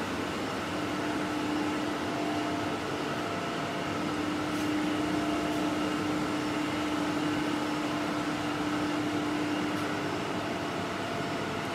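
Roche/Hitachi cobas pure clinical analyzer running, its fans and internal mechanics giving a steady hum with a fixed low tone.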